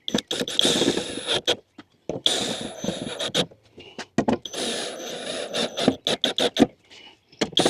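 A wooden drawer being pounded together to force a tight joint home: a run of sharp knocks, broken by four rougher, noisier stretches of about a second each.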